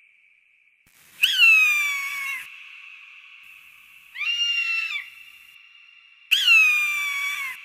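Hawk calling: three high screams. The first and last are long and slide downward in pitch, and the middle one is shorter.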